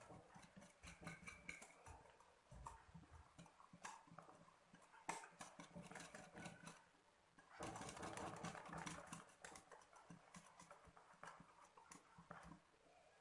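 Faint hand-mixing of cake batter: a spoon scraping and clicking against the mixing bowl, with a busier stretch of stirring about two-thirds of the way through.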